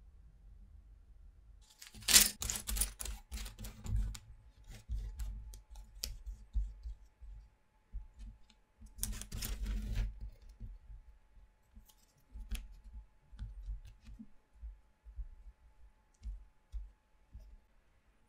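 Wooden popsicle sticks clicking and clattering as they are picked up from a loose pile and set down on a hard table. There are two busy clusters of clatter, about two seconds in and again around the middle, with scattered single taps between.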